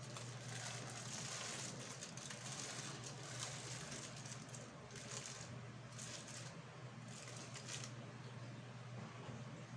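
Aluminium foil rustling and crinkling in irregular bursts as foil-wrapped fish on a metal tray is handled into a small electric oven, with a light knock of the tray, over a steady low hum.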